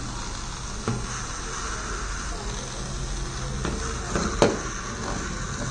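Steady background hiss, with a faint tick about a second in and a sharper, louder knock about four and a half seconds in as a small cardboard model is handled.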